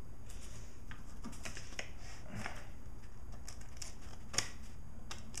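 Light scattered clicks and rustles of a folding multi-tool knife being handled and opened, with one sharper click about four seconds in, over a low steady hum.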